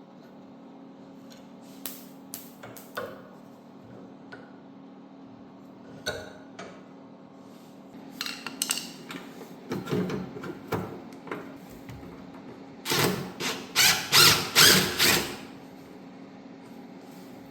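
Metal hand tools knocking and clinking on a three-wheeler during teardown: scattered light clicks, then a run of about six loud, quick strikes near the end, over a steady low hum.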